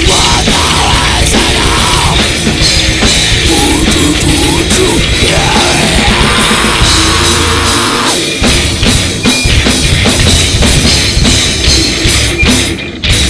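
Death metal band playing live: heavily distorted guitars and bass over a pounding drum kit, with a vocalist shouting into the microphone. About eight seconds in the dense wall of sound breaks into choppier, stop-start hits, with a brief drop-out near the end.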